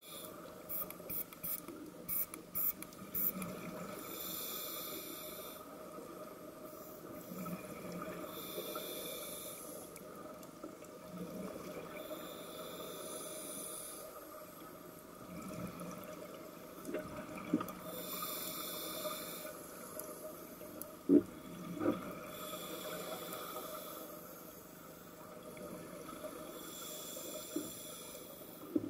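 Scuba diver breathing through a regulator underwater: a bubbly hiss of exhaled air every four to five seconds over a steady underwater hum. A quick run of clicks comes in the first few seconds, and two sharp knocks come a little past the two-thirds mark.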